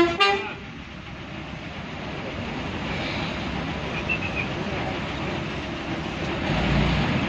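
Steady road and engine noise inside a moving air-conditioned bus. A short, loud horn note sounds at the very start, and the low rumble swells briefly near the end.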